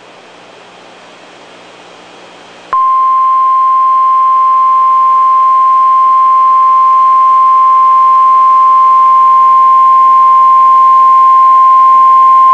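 NOAA Weather Radio warning alarm tone, the single steady 1050 Hz tone that signals an urgent warning broadcast is about to follow. It cuts in loud and sudden about three seconds in, after a moment of faint radio hiss, and holds unchanged for about ten seconds.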